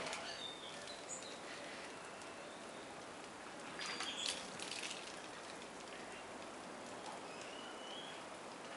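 A few short bird chirps and clicks over a steady background hiss, the busiest cluster of chirps around four seconds in and a short rising whistle near the end.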